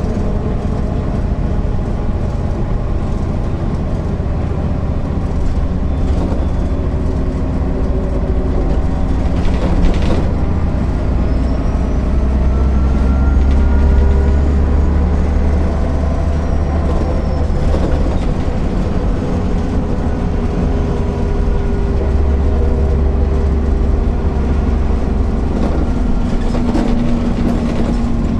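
MAN NL 262 city bus under way, its six-cylinder diesel engine running through the ZF five-speed automatic, with the engine note drifting up and down. There is a single knock about ten seconds in.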